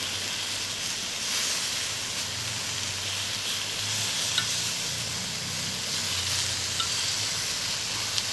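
Steak sizzling on a hot black griddle plate as it is cut up, with about three light metal clicks of the blade and tongs against the plate.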